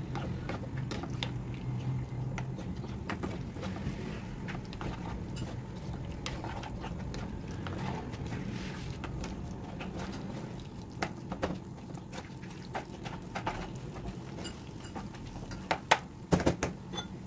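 A spatula stirring and scraping chicken pieces through a thick, creamy gravy in a nonstick frying pan, with many small clicks and taps of the utensil against the pan over a low steady hum. A few louder clacks come near the end.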